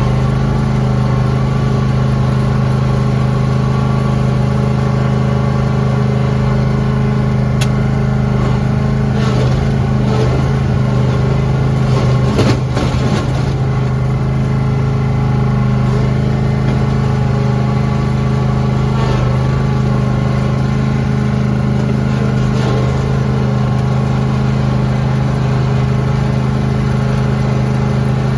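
Lawn tractor engine running steadily at a constant speed while plowing snow, with a brief clatter about halfway through.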